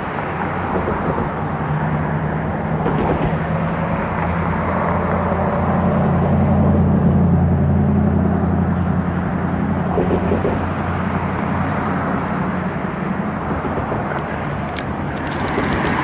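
Engine hum of a motor vehicle, a low steady drone that swells to its loudest about halfway through and then fades away.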